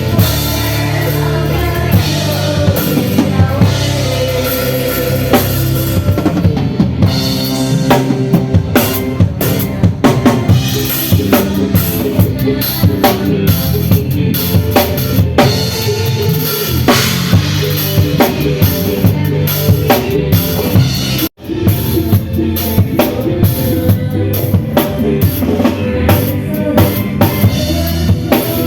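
A band playing, with the drum kit to the fore: steady bass drum and snare hits over other instruments. The sound cuts out for an instant about three quarters of the way through, then carries on.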